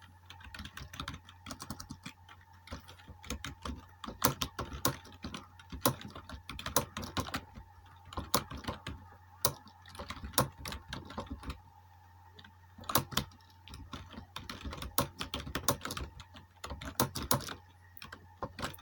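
Fast typing on a computer keyboard during a typing-speed test: keys clicking in quick, irregular runs, with a short pause about twelve seconds in. A faint steady low hum sits underneath.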